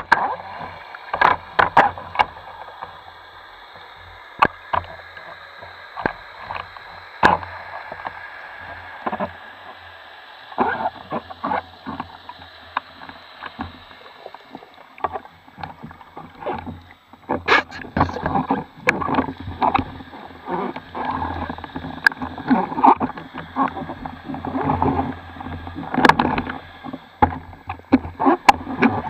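Muffled underwater sound through a speargun-mounted camera's waterproof housing: water movement with many sharp knocks and clicks, sparse at first and busier from about halfway through.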